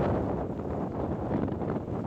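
Strong wind blowing through trees and buffeting the microphone, a low rumbling rush that rises and falls.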